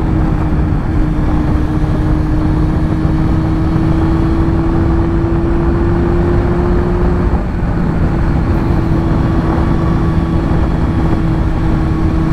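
Yamaha FZ6 S2's inline-four engine running steadily under way, with heavy wind and road rush. Its pitch rises slowly, dips briefly about seven seconds in, then holds steady.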